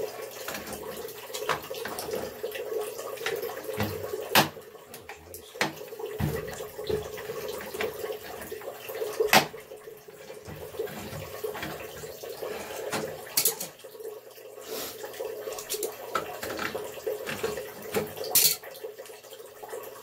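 Water running steadily from a gas water heater being drained, with a few sharp clicks and knocks as the gas control valve is turned and handled.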